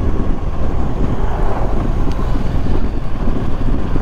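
Wind rushing over the microphone of a moving motorcycle, mixed with its engine and road noise, as a steady loud low rumble.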